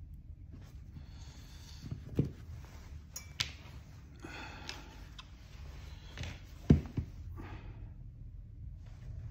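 Hand-stitching leather onto a metal handle with two needles: the thread is drawn through the stitch holes with a soft rasping hiss, twice, among a few light clicks and knocks. The loudest knock comes about two-thirds of the way through.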